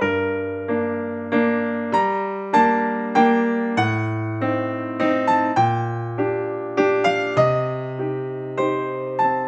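Background music: a gentle keyboard melody of struck notes that fade away, over held bass notes.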